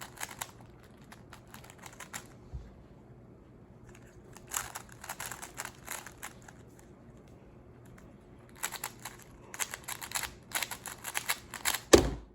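Plastic 3x3 Rubik's cube being handled and turned: runs of quick plastic clicks and clatter in three spells, ending in one loud thump just before the end.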